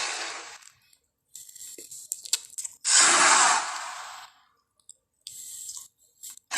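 Giant crocodile monster sound effects: breathy hisses, one dying away at the start and a louder one about three seconds in, with soft clicks between them.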